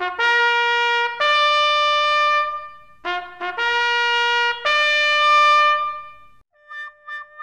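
Solo trumpet playing two rising phrases, each a few short notes climbing to a long held note. Near the end a softer note pulses quickly, about three times a second.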